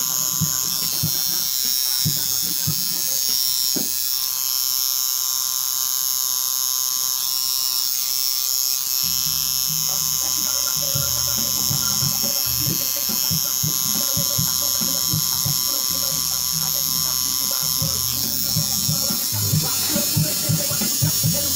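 Electric tattoo machine buzzing steadily as it drives the needle into skin.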